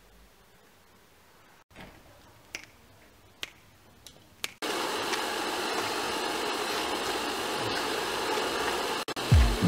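A few faint clicks, then about halfway in a steady loud rushing noise starts suddenly: a blacksmith's forge running. Heavy low thumps of a beat begin near the end.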